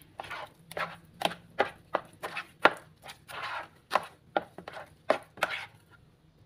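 A spatula stirring thick, wet ground-fish dough in a plastic bowl: irregular wet slaps and scrapes, about two or three a second, stopping shortly before the end. The fish paste has just thickened after the salt was mixed in.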